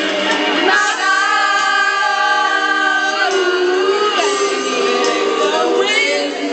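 Several women singing together loudly, holding one long note from about a second in and then moving on to other notes.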